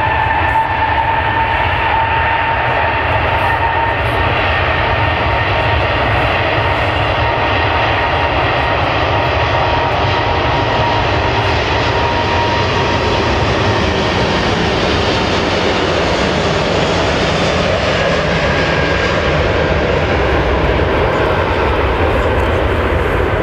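Airbus A380's four Engine Alliance GP7200 turbofans at takeoff thrust: a loud, steady jet roar with a fan whine held on one pitch, the roar growing fuller past the middle.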